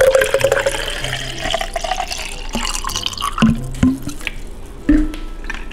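Sports drink poured from a bottle into a glass, a steady trickle whose pitch rises as the glass fills, followed by a few light knocks about halfway through and near the end.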